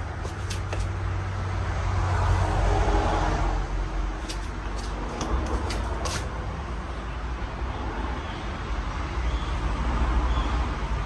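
50-inch Casablanca Panama 5 ceiling fan running: a steady low hum with an even rush of moving air, and a few faint clicks.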